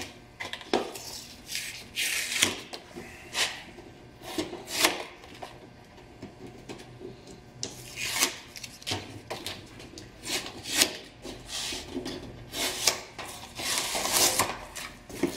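Painter's tape being peeled off a car's painted fender, with a stiff template sheet rustling and rubbing against the body panel. The sounds come as a run of short, irregular rips and scrapes.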